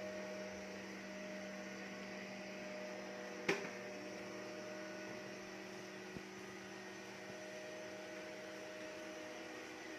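Robot vacuum cleaner running steadily, its motor giving a continuous hum with a few steady tones. A single sharp knock comes about three and a half seconds in.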